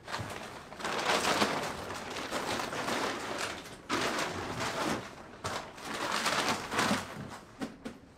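A large clear plastic dust sheet crinkling and rustling as it is spread and smoothed over a mixing console, in about three bursts of crackling with small clicks.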